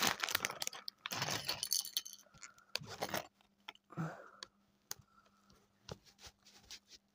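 Plastic LEGO Minifigures blind bag crinkling as it is handled, with small hard plastic LEGO pieces rattling and clicking as they are tipped out. A few separate clicks come near the end as pieces drop onto the cloth.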